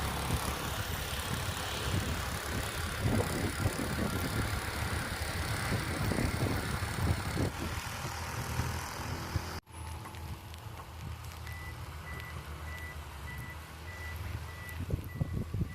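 Engine of a snow-clearing machine running steadily with a low rumble, under wind and snow noise. About ten seconds in the sound cuts to a quieter outdoor scene, where a reversing alarm beeps repeatedly, about two to three short high beeps a second.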